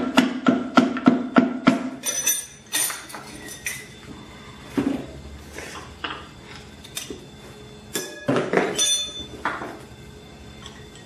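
Steady hammer taps, about three a second, as a wooden hammer handle drives a piston and connecting rod out of a Cummins 5.9 common-rail diesel's cylinder bore, stopping about two seconds in. After that come scattered metallic clinks and clanks as the freed piston and rod are handled.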